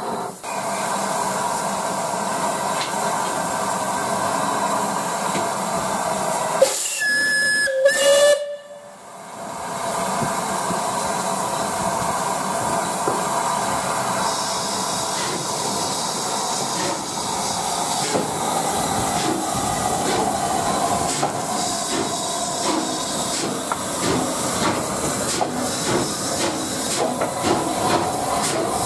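Rebuilt Bulleid Battle of Britain class Pacific steam locomotive 34059 moving slowly past, its steam hissing steadily. A steam whistle sounds two short blasts about seven seconds in, and quick clicks and clanks from the wheels and motion run through the second half.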